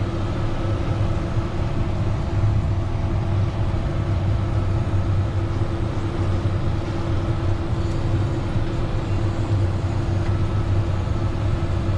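Diesel engine of a large harvest machine running at a steady speed, a constant low hum with a steady higher tone above it.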